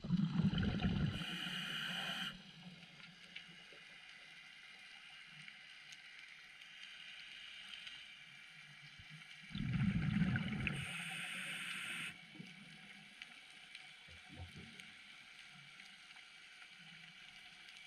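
Underwater recording of a diver's exhaled breath bubbling out twice, about ten seconds apart, each a low rumble turning to a hiss. Between the breaths a faint hiss with scattered small clicks.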